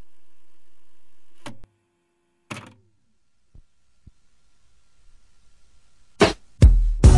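A steady electronic hum cuts off with a click about a second and a half in. A few scattered clicks and ticks follow over a faint rising hiss, then two loud, sudden thumps near the end.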